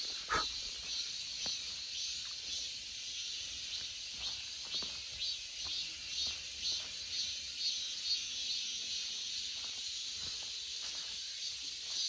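Cicadas singing in chorus: a steady high-pitched buzz that pulses about two or three times a second. A few faint footsteps sound now and then.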